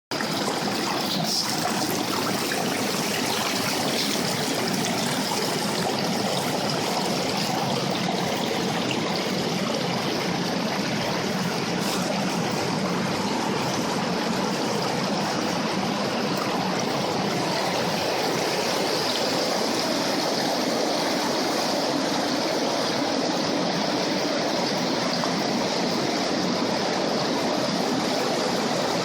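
Dettifoss, a large waterfall, thundering in a steady, unbroken rush of falling water.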